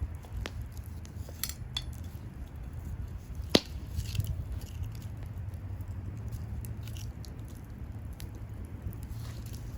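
Wood bonfire crackling: scattered sharp pops and ticks over a steady low rumble of the flames, with one loud pop about three and a half seconds in.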